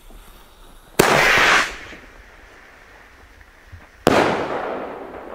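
A Nico Rocket Strike finned rocket firing. A loud bang about a second in throws it up, followed by a short rush of its motor. About three seconds later its burst goes off high up with a second bang that fades away slowly.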